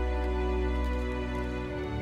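Background music of sustained held chords, the bass moving to a new note near the end.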